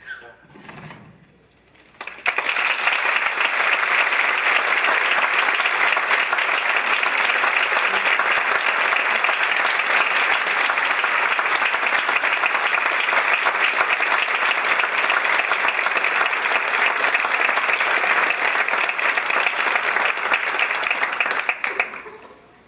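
Audience applauding, starting abruptly about two seconds in and running as a dense, steady clapping that cuts off suddenly near the end.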